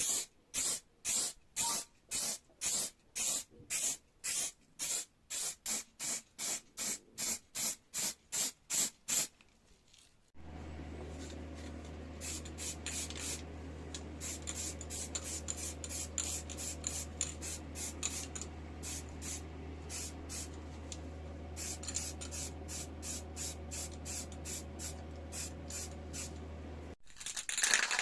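Paint being sprayed in short, evenly repeated hissing bursts, about two to three a second. About ten seconds in, a steady low motor hum starts under the spraying and stops shortly before the end.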